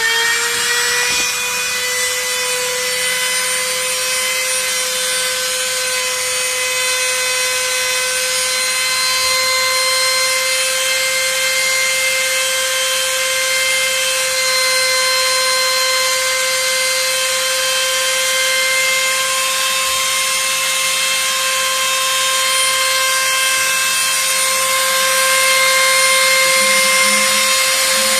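Rotary-tool spindle of a homemade Cyclone CNC mill running at high speed: a steady high whine with many overtones, its pitch still rising as it settles in the first second after start-up. A lower hum joins near the end.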